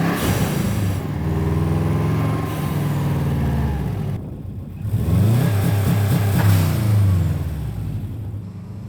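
Turbocharged Subaru Impreza flat-four engine revving up and down, with a Blitz Super Sound blow-off valve venting in a whooshing rush as the revs drop, near the start and again in the second half.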